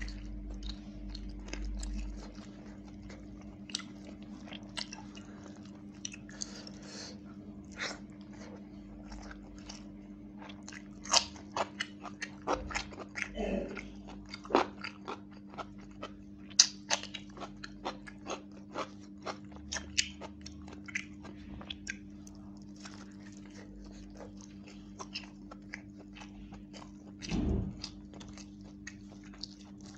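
Close-up mouth sounds of a person biting and chewing roast chicken and rice: wet smacks and crunchy clicks, most frequent in the middle, over a steady low hum. A dull thump comes near the end.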